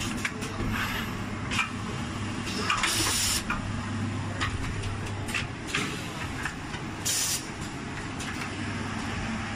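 Automatic pneumatic packaging machine running: a steady hum with scattered clicks and clacks of its moving parts, and two short hisses of compressed air venting from its pneumatic cylinders, about three seconds in and again near seven seconds.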